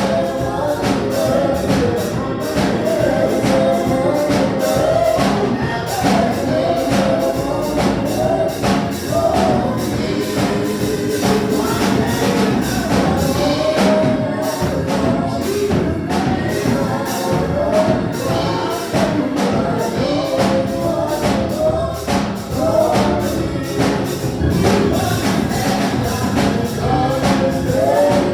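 Gospel music: a choir singing over a steady percussion beat.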